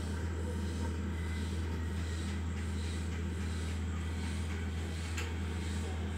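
Steady low hum with a faint hiss above it, even throughout.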